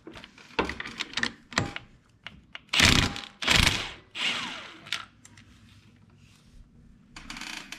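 Cordless Kobalt 24V brushless impact wrench hammering in three short bursts on an ATV's slotted clutch nut, through a clutch-nut socket, to break the nut loose for clutch removal. Light metal clicks come first as the tool is set on the nut.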